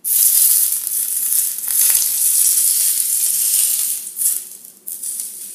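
Hot olive oil poured from a frying pan onto shredded ginger and green onion on a cooked fish, sizzling loudly as it scalds the aromatics. The sizzle starts suddenly, holds for about four seconds, then dies down in spurts.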